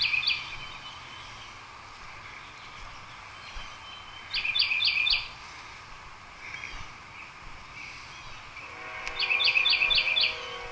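A songbird singing a quick phrase of four or five down-slurred whistled notes, repeated three times about every five seconds. About nine seconds in, a faint steady droning tone comes in underneath.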